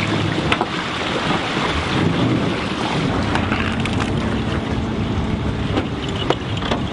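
Wind buffeting the microphone over a low, steady engine hum, with a few light knocks.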